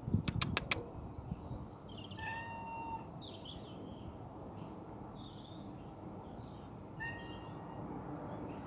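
Domestic cat giving two drawn-out, baby-like meows, about two seconds in and again about seven seconds in: crying to be let in at the door. A few sharp clicks sound in the first second.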